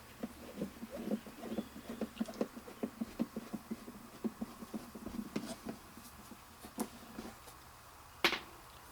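Screws being backed out of a plastic heater box housing with a screwdriver: a run of small, quick, irregular clicks and ticks from the driver and the plastic, and one sharper click near the end.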